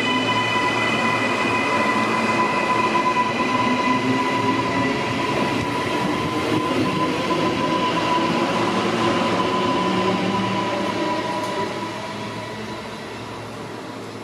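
Electric suburban multiple-unit train running past close by, wheels on rail with a steady motor whine, which holds for most of the pass. The sound fades away over the last few seconds as the train leaves.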